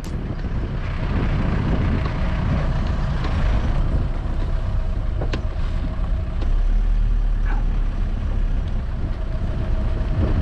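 Motorhome on the move: steady engine and road noise, with a single sharp click about halfway through.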